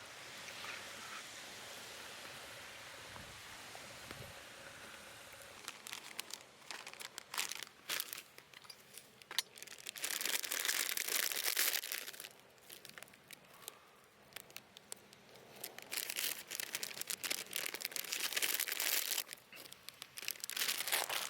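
Crinkling and rustling, as of plastic packaging being handled, in two bursts of about two seconds each, with scattered clicks before them; the first few seconds hold only a faint steady hiss.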